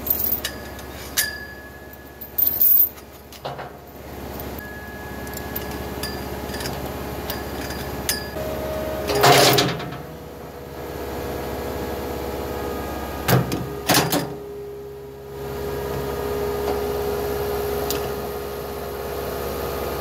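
Heavy steel chain clinking and rattling as it is drawn tight and wraps around a steel fence post, with several loud clanks about halfway through. A turbocharged Thomas 243HD skid steer runs under load as it pulls the post and its concrete footing out of the ground, its steady engine note growing louder near the end.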